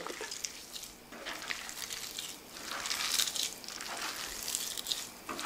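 A bare hand squishing and kneading soft cooked rice into an oily mustard-seed masala in a pan: soft, irregular wet squelching and rustling.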